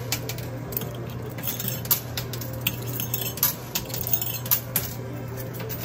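Quarters clinking and clattering against one another on a coin pusher machine's playfield as the pusher shelf shoves them, in irregular sharp clinks over a steady low hum.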